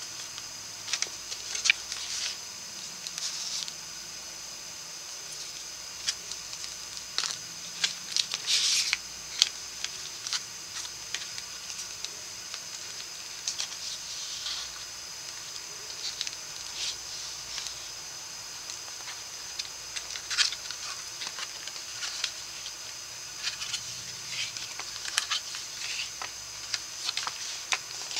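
Paper and cardstock rustling and sliding as the pages, flaps and tags of a handmade paper folio are handled, with scattered short soft taps, over a steady high hiss.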